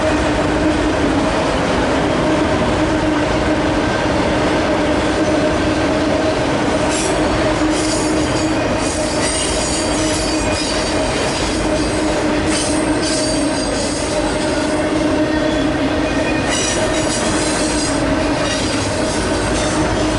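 Empty autorack freight cars rolling past, a steady loud rumble with a constant low drone. High-pitched wheel squeal comes and goes several times from about a third of the way in.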